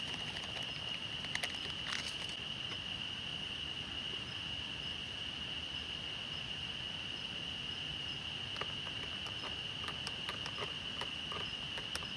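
Forest insects chirring in one steady high-pitched drone over a soft hiss of rain, with scattered light ticks of drops falling, a few close together just before two seconds in and more near the end.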